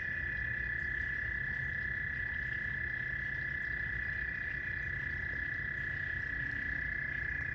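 Frogs calling in a loud chorus: one steady high trill, held without a break.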